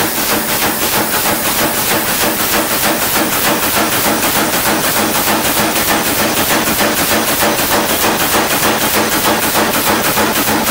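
Power hammer pounding a glowing Damascus steel billet in a fast, steady run of blows, about four a second.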